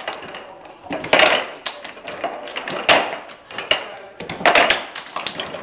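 Many cups being tapped, clapped and set down on a wooden floor in a circle cup-passing rhythm game: a clatter of clicks and knocks bunched into bursts about every second and a half.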